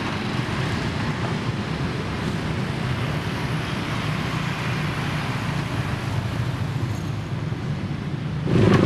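Steady street traffic noise, a low rumble with a hiss over it, growing louder near the end.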